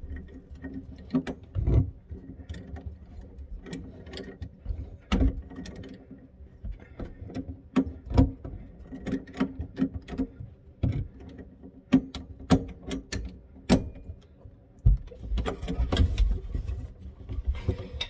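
Pliers clicking and knocking on the faucet's water-line coupling nuts as they are tightened down, a run of irregular sharp metal clicks with handling knocks.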